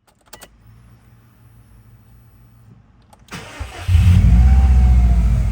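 Subaru EJ205 turbocharged flat-four cranked and starting about three and a half seconds in, then running loud and steady. The engine has an abnormal noise coming from its turbocharger.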